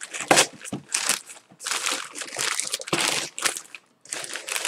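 Plastic mailer bag crinkling in irregular bursts as it is handled and pulled open, with a short pause about four seconds in.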